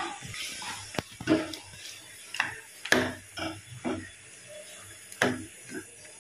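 Metal ladle stirring a thick mutton curry in a pan, knocking and scraping against the pan in irregular clinks and scrapes.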